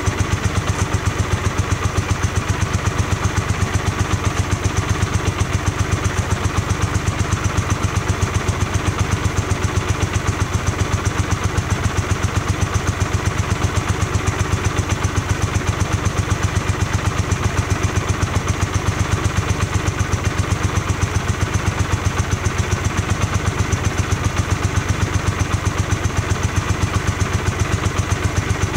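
1982 Honda GL500i Silverwing's V-twin engine idling steadily, with an even, regular exhaust pulse.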